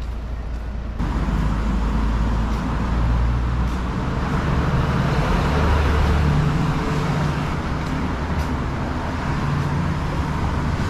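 Road traffic on a busy multi-lane road: a steady wash of passing cars with a low rumble, coming in abruptly about a second in and swelling in the middle.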